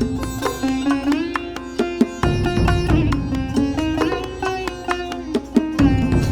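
Instrumental music in a world style: a plucked-string melody with bent notes over a held drone, backed by bass and a drum beat. The low end cuts out briefly about two seconds in.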